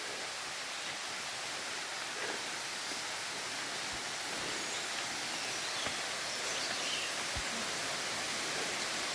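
Steady rushing hiss of a waterfall, growing slightly louder toward the end, with a few faint high chirps and a couple of soft knocks.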